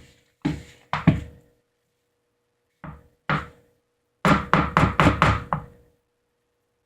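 A utensil knocking against a mixing bowl while stirring a thick flour, shampoo and toothpaste slime mix: a few single knocks, then a quick run of about six, roughly four a second, near the end.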